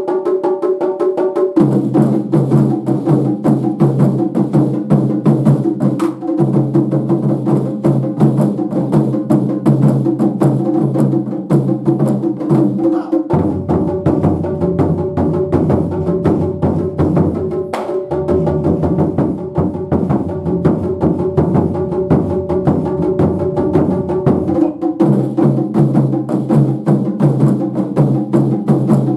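Taiko drums played in a fast, steady rhythm with sharp rim-like clicks, over sustained backing music whose low chords change every few seconds.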